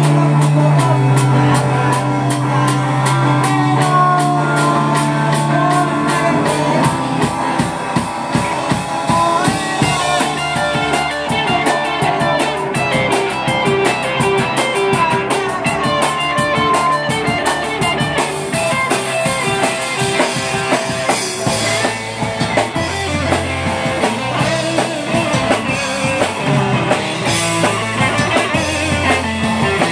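A live rock band playing: drum kit with steady cymbal hits, electric bass and electric guitar, loud and continuous.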